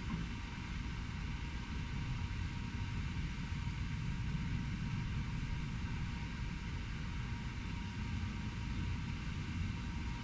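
Steady low rumble of urban traffic noise, with no distinct events standing out.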